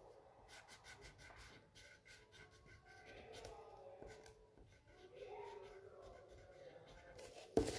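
Faint scratching of a coloured pencil shading paper in many quick strokes, with a single louder knock near the end.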